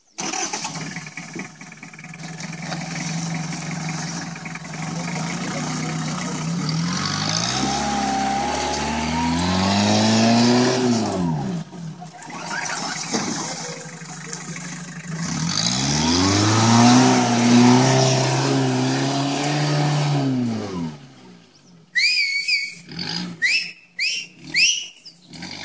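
Open Willys-style jeep's engine running as it climbs a steep dirt slope. It revs up and falls back twice, about seven and again about fifteen seconds in, then drops away. Near the end come several short, high, rising whistle-like calls.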